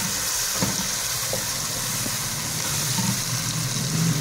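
Onions, tomatoes and spices sizzling steadily in hot oil in a metal pot while a wooden spatula stirs them, with small scraping ticks against the pot.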